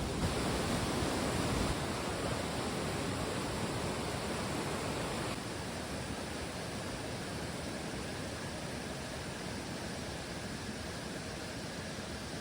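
Steady rushing of river water, an even noise with no distinct events, stepping a little quieter about five seconds in.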